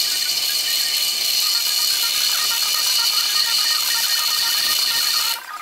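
Wire cup brush turning in a drill press and scouring a gear from a McCormick-Deering sickle blade grinder held against it. It makes a loud, steady, high scraping hiss that stops near the end.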